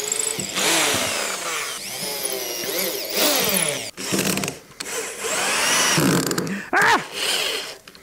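Cordless drill driving screws into timber in a series of short bursts, its motor pitch rising and falling with each run-up and stop.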